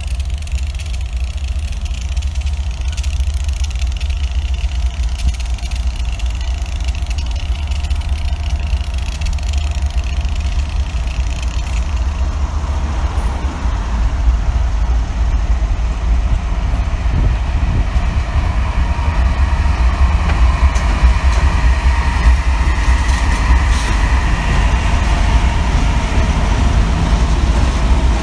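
Diesel freight locomotives of a departing train running, a deep steady rumble that grows louder from about halfway in.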